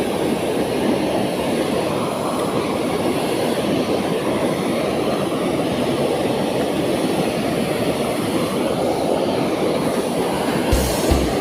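Steady rushing roar of a waterfall, the water noise even and unbroken throughout. Near the end a few low thumps and clicks sound close to the microphone.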